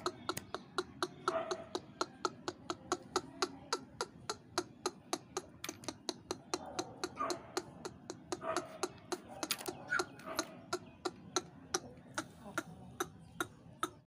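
Rapid, even clicking, about four or five sharp clicks a second, with a few faint brief tones mixed in now and then.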